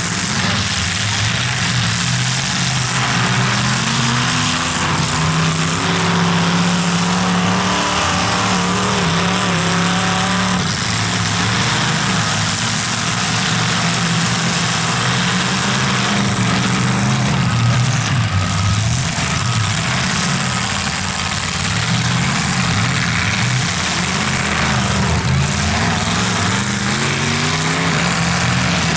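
Several demolition derby car engines running and revving up and down at once, their pitches rising and falling independently.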